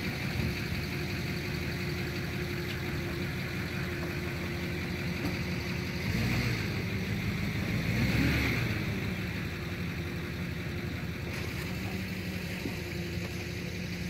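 An engine idling steadily, growing louder for a few seconds in the middle as it runs up, then settling back to idle.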